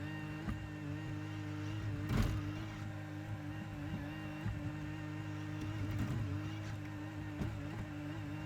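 2021 Bobcat E42 mini excavator's diesel engine running steadily, with a few short knocks from the machine, the loudest about two seconds in.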